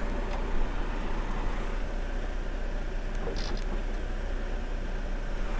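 Timber truck's diesel engine idling steadily, a constant low hum under an even rumble.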